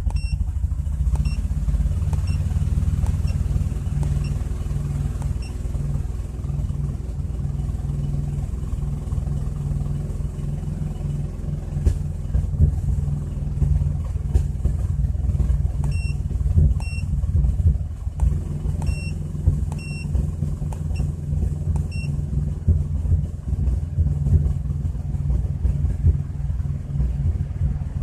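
2004 Chrysler Crossfire's 3.2-litre V6 idling roughly, a low rumble whose loudness wavers unevenly. Short high electronic beeps sound several times, in a run near the start and another run about two-thirds through.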